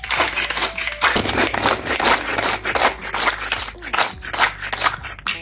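Kitchen food chopper chopping fried chicken into small pieces: a dense, uneven rattling chop that starts and stops abruptly.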